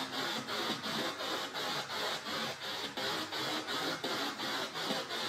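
P-SB7 Spirit Box radio sweeping rapidly through FM stations: a stream of radio static chopped into about four pulses a second, with brief snatches of broadcast sound breaking through the hiss.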